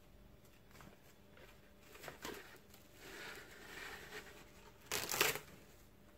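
Rustling and crinkling handling noises, with a short sharp rustle about two seconds in, a longer rustle after it, and the loudest crackling burst about five seconds in.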